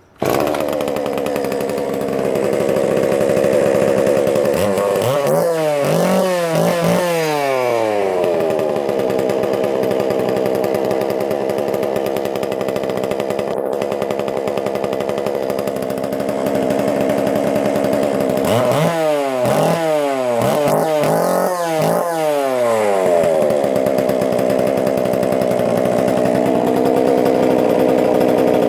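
Vintage McCulloch PM484 two-stroke chainsaw engine running with its bar and chain removed. It idles steadily and is blipped up and down in a few quick revs twice, about five seconds in and again near twenty seconds.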